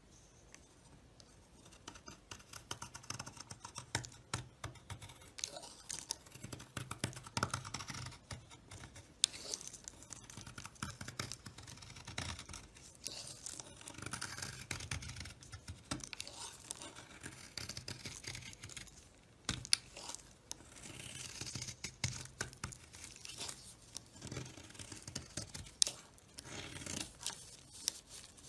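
Dry bar soap being carved and scraped with a blade, with crisp crackling scrapes and many sharp little clicks as pieces break away.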